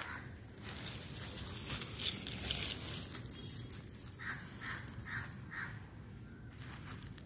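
Dog barking: a quick run of four short barks, evenly spaced, starting about four seconds in.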